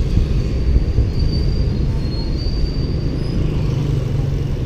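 Wind buffeting an action camera's microphone while cycling along a paved road, with tyre noise on the asphalt: a steady low rumble.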